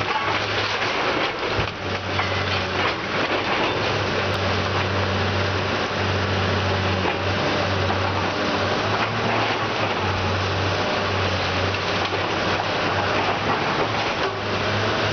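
Hydraulic tracked excavator's diesel engine running steadily under load as it tears apart a brick and wood-frame building, with continuous crunching and cracking of timber and debris and a few sharper knocks.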